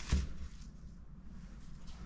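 A single thump just after the start, followed by a low steady rumble.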